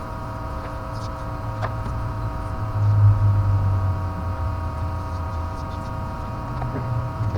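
A steady machine hum made of several even tones, under a low rumble that swells about three seconds in and again near the end.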